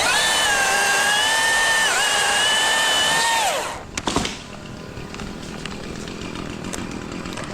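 Battery-powered Milwaukee top-handle chainsaw spinning up to a steady high whine, dipping briefly in pitch about two seconds in, then winding down as the trigger is released. A sharp knock follows just after.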